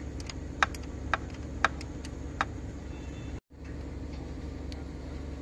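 Light metallic clicks and clinks from an open-end spanner working the idler pulley bolt: about seven irregular clicks in the first two and a half seconds, then a few fainter ones after a brief dropout about three and a half seconds in, over a steady low hum.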